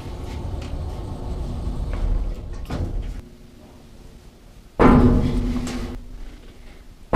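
Deep, sudden booming hits, two of them about two and a half seconds apart, each ringing on with a low hum as it fades, after a low rumble in the first few seconds.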